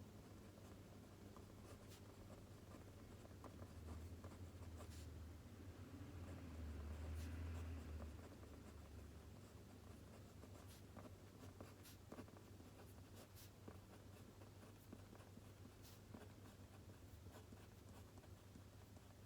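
Faint scratching of writing on paper at a desk, with scattered small ticks and taps. A low hum swells briefly from about four seconds in to about nine seconds in.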